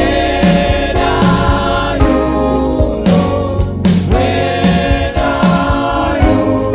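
Gospel worship music: a choir singing over a steady drum beat.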